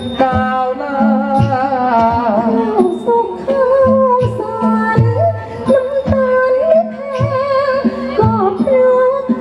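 Likay (Thai folk opera) singing: a performer's voice carries a wavering, ornamented melody over a live accompaniment with a steady drum beat, about one stroke every three-quarters of a second.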